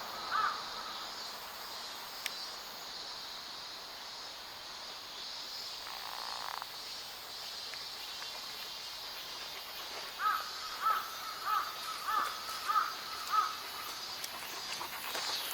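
A crow cawing: one caw right at the start, then a run of about six caws roughly half a second apart later on, over a steady high-pitched insect drone.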